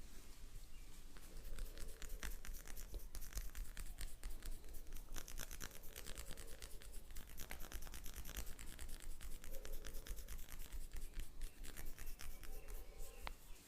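Rapid, dry scratching and rubbing close to the microphone, a dense run of quick strokes that comes and goes in busier clusters.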